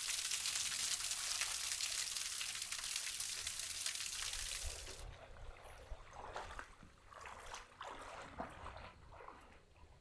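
Water trickling down a small rocky cascade, a steady hiss that cuts off suddenly about five seconds in. After it, quieter, irregular splashing of a shallow stream.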